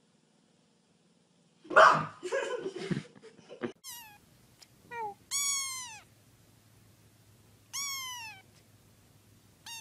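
A young kitten mewing: about five high meows that fall in pitch, the longest lasting under a second each, starting about four seconds in. Before them, about two seconds in, a loud rough burst of noise, the loudest sound here.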